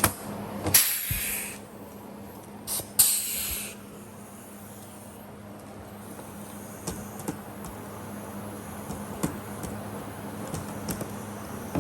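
Air-powered rivet gun setting rivets: two short hissing blasts of air, each starting with a sharp snap, followed by scattered light ticks and taps.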